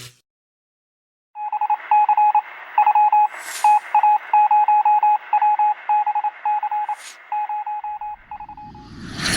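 Electronic beeps at one steady pitch, keyed in quick, uneven groups of short and longer tones like Morse code, starting a little over a second in and stopping just before the end. A rising whoosh begins right at the end.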